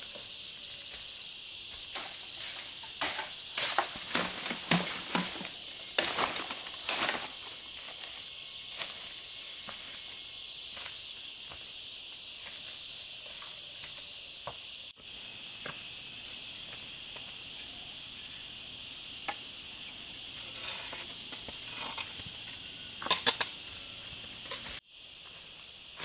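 Steady chorus of forest insects, a shrill buzzing held on several high pitches, with frequent short rustles and knocks of close-by handling or movement, busiest in the first several seconds and again near the end.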